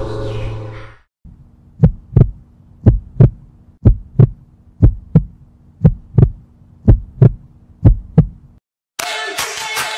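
Heartbeat sound effect: seven double thumps, lub-dub, about one a second, over a low steady hum. An ambient music bed fades out just before it, and music with a beat starts near the end.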